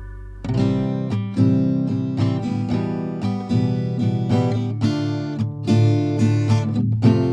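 Background music: an acoustic guitar being strummed and plucked in a steady rhythm, starting about half a second in as an organ chord dies away.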